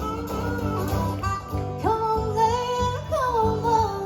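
Live band playing a country-folk song: a steady low beat under a melody line that slides up about halfway through and is held for over a second.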